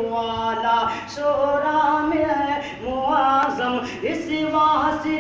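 A man singing a naat, an Urdu devotional poem in praise of the Prophet, solo and unaccompanied. He holds long notes and ornaments them with sliding turns, with short breaths between phrases.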